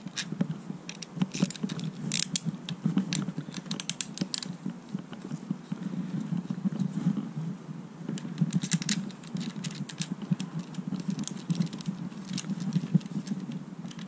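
Irregular small clicks, taps and rattles of handguard parts and their mounting hardware being handled and fitted onto a motorcycle handlebar, over a steady low hum.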